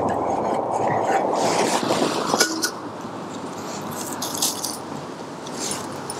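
Handling of camping cookware, with a sharp light metallic clink about two and a half seconds in, over steady road traffic noise that drops at about the same moment.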